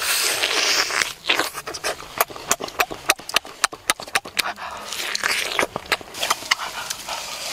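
Close-up eating sounds from a person biting into roasted chicken: many sharp, irregular wet lip smacks and chewing clicks, with stretches of breathy sucking and slurping at the meat.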